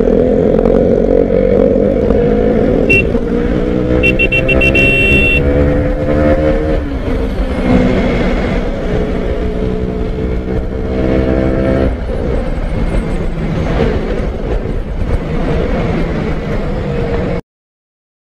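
Road vehicle engine accelerating through the gears, its pitch climbing twice, with a short horn toot about three seconds in and a longer honk soon after. The sound cuts off abruptly to silence near the end.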